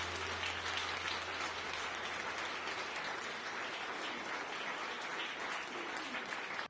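Audience applauding, many hands clapping at a steady level, which cuts off suddenly at the very end.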